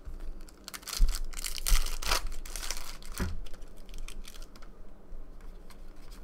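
Trading card pack wrapper torn open and crinkled: a run of noisy rips and crinkles from about a second in, then light clicks and rustles as the cards are pulled out and handled.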